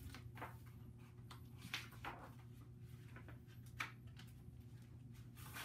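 Quiet room with a steady low hum, and a few brief soft rustles and taps of a large picture book's paper pages being handled and turned.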